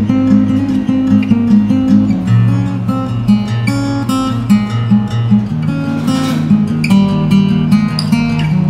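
Background music: a guitar piece with a steady run of notes.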